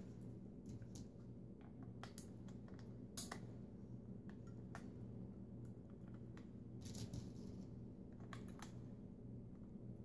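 Scattered light plastic clicks and handling noise as AA batteries are pressed into the battery compartment of an electric salt and pepper grinder, over a faint steady low hum.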